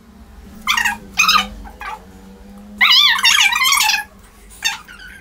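Dog whining: a few short high whines, then a longer wavering whine about three seconds in.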